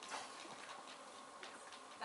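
A few faint taps and clicks of footsteps and shuffling on a wooden stage floor over quiet hall room tone.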